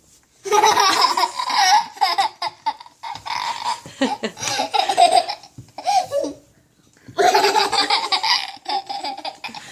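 A young child laughing in several long, high-pitched bouts with short breaks between them.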